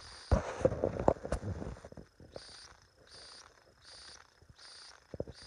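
A short flurry of knocks and rustling, then crickets chirping in an even rhythm, a high chirp about every three-quarters of a second.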